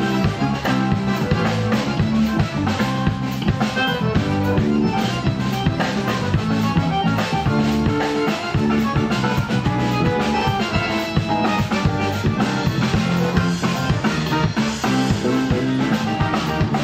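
Live band playing an upbeat tune on hollow-body electric guitar, accordion, drum kit and electric bass, with a steady drum beat.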